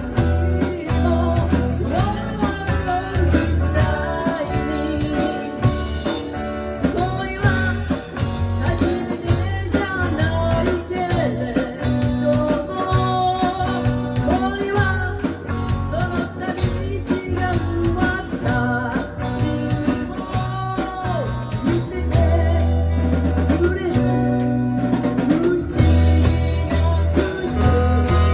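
Live band playing a bluesy rock number: guitar, bass and drum kit, with a melody line that bends and slides in pitch over the steady bass and beat.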